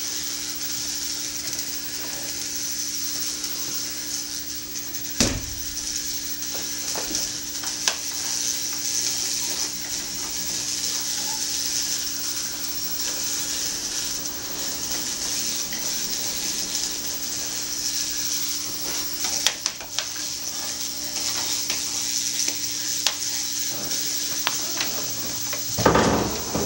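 Handheld degaussing ring (degausser coil) running near a CRT television: a steady electrical hum of several low tones under a sizzling hiss. A few sharp clicks along the way and a louder burst of noise near the end.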